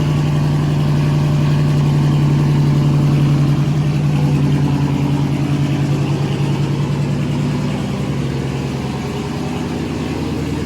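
Dodge Charger Scat Pack's 392 (6.4-litre) Hemi V8 idling loudly just after a cold start, running on E85.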